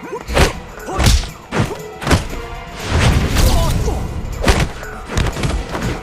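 Martial-arts fight sound effects over background music: a string of sharp thuds about half a second to a second apart, with a heavier, longer crash about three seconds in.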